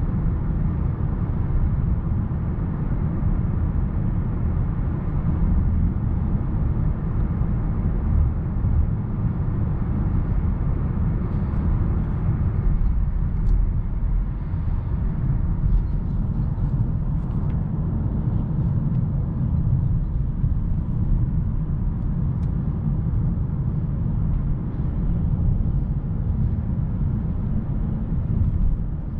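Steady low rumble of a 2022 Kia K8's 2.5-litre four-cylinder petrol engine and its tyres on the road, heard from inside the cabin while driving, with a few faint ticks partway through.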